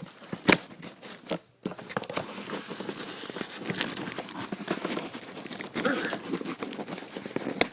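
Cardboard shipping box being opened by hand: packing material crinkling and cardboard and tape tearing, with a few sharp knocks in the first second or so.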